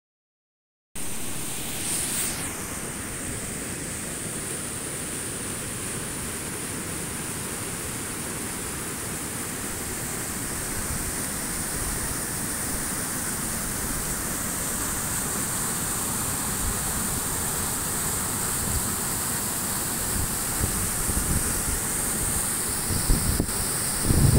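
Mountain stream rushing over rocks: a steady, even rush of water that starts about a second in, with a few low bumps near the end.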